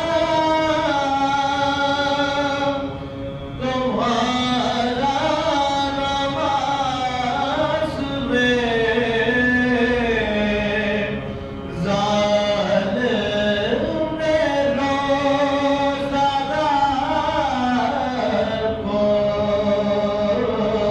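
Men's voices chanting Soz, an unaccompanied Urdu devotional lament, in long, slowly bending held lines. The chanting breaks briefly for breath about 3 seconds and 11 seconds in.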